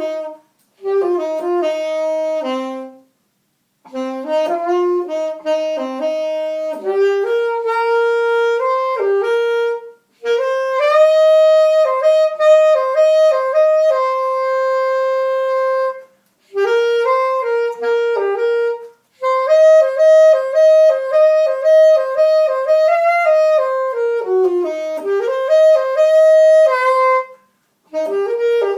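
Unaccompanied saxophone solo: a single melodic line played in short phrases with brief pauses between them. There is a long held note about halfway through.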